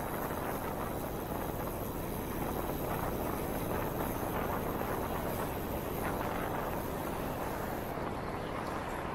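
Steady rushing noise of city traffic and wind heard while riding a bicycle, even throughout with no single sound standing out.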